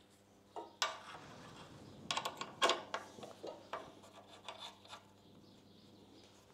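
Metal parts of a magnetic drill rig being handled and fitted: irregular scrapes, rubs and light knocks, with a cluster of louder clatters about two to three seconds in, over a faint steady hum.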